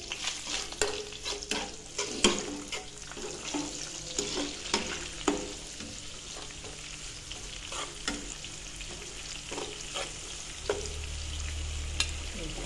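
Chopped garlic, bay leaves and whole spices sizzling in hot oil in a pan, stirred with a spatula. The spatula scrapes and taps irregularly against the pan, mostly in the first half, over a steady sizzle.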